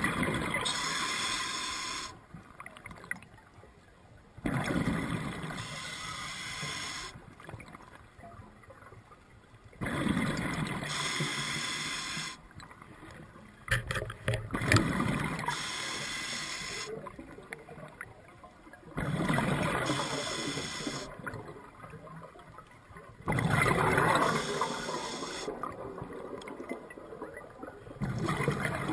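Scuba diver breathing through a regulator: a burst of exhaled bubbles every four to five seconds, about six times, with quieter breaths between. A few sharp clicks come about halfway through.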